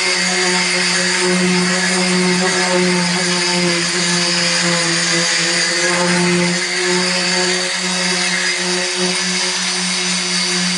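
Handheld electric sander running steadily, with a constant hum and abrasive hiss as it sands back the painted roof of a bus.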